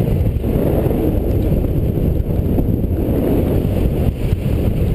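Wind rushing and buffeting over a paraglider pilot's microphone in flight: a loud, steady, deep rumble with no clear pitch.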